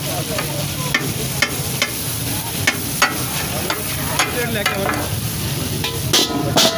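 Fish katakat sizzling on a large flat tawa griddle while metal spatula blades chop and scrape through it, giving irregular sharp clacks over a steady sizzle. Two louder strikes come near the end.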